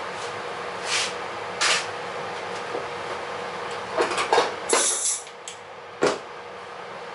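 Pneumatic 2X rivet gun firing briefly on a rivet in the aluminium vertical stabilizer skin, heard as a quick cluster of knocks and hiss, with a sharp knock about a second later as the gun is put down on the wooden bench. A couple of short hisses come earlier, over a steady shop hum.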